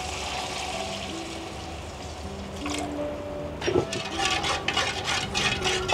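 Water pouring in a thin stream into a steel wok of sauce. About halfway through, a metal spoon starts stirring and clinking against the wok, and the clinks grow louder toward the end. Soft background music plays underneath.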